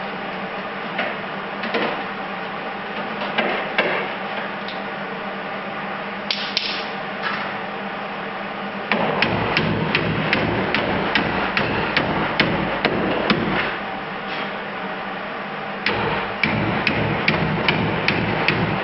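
Hammer striking sheet metal: a few scattered blows, then two fast runs of strikes about halfway through and near the end with a short pause between them, typical of hammering a sheet-metal patch or flange into shape.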